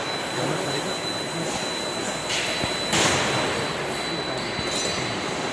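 Pet biscuit production line running: steady mechanical noise from the rotary cutting drum and conveyor belt, with a thin, steady high whine. A brief, louder hiss comes about three seconds in.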